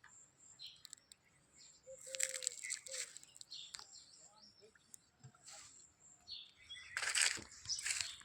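Birds chirping and calling in the background, with two short bursts of rustling noise, the louder one near the end.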